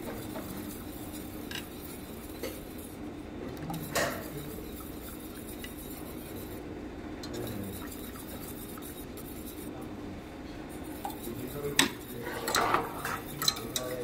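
Wire whisk stirring pumpkin porridge in a stainless steel saucepan, with metal spoon and whisk clinking against the pot. There are a few sharp clinks about four seconds in and a loud cluster of them near the end, over a steady low hum.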